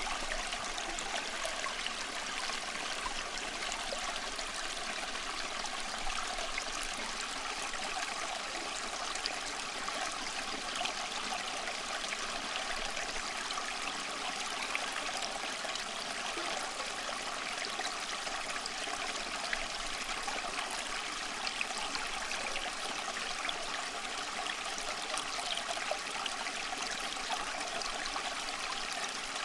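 Steady rushing water like a flowing stream, an even hiss with no breaks.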